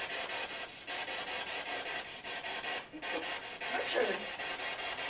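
Spirit box sweeping through radio frequencies: a steady hiss of static chopped into rapid, even pulses, with brief snatches of voice-like sound about three and a half seconds in.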